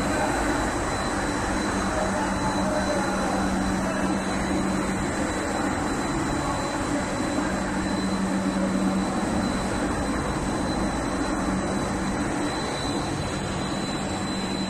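A 2500 mm testliner and fluting paper machine running: a loud, steady din of rollers and drive motors with a constant low hum and a thin high whine.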